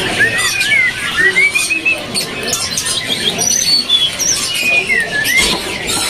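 Caged songbirds singing: clear whistled phrases that slide up and down, with short high chirps and notes scattered among them.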